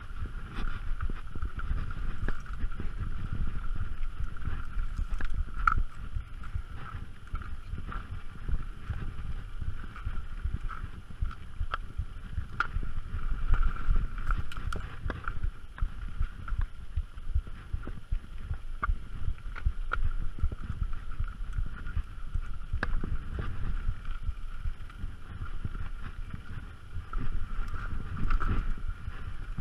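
Mountain bike rolling fast down rough dirt singletrack: a continuous rumble of tyres and wind on the microphone, with a steady high buzz underneath and sharp rattles and clicks from the bike over bumps.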